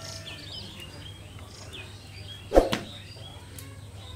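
A single sharp knock of cookware about two and a half seconds in, with a smaller knock just after it. Small birds chirp on and off underneath.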